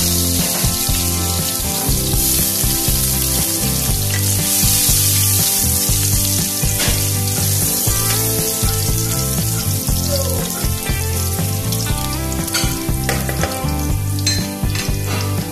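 Chopped garlic sizzling steadily in hot oil in a nonstick wok, with a few scrapes of a wooden spatula in the second half. Background music plays underneath.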